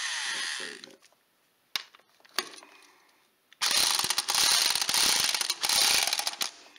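Cordless power tool spinning a socket on a long extension, backing off the 3/4-inch nut on an ATV's transmission support bolt. Its motor winds down with falling pitch in the first second. After a couple of single clicks, a loud run of rapid mechanical clattering starts about three and a half seconds in and lasts about three seconds.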